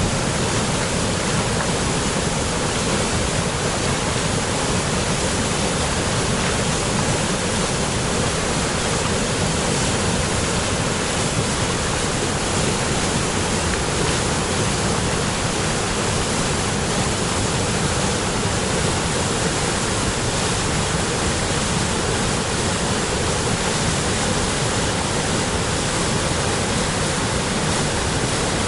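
Spring waterfall on a small river pouring in a steady, loud rush of falling water.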